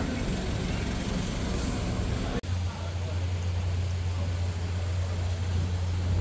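Street ambience of passing traffic at a busy intersection. It cuts off suddenly about two and a half seconds in to a steady low hum over fainter street noise.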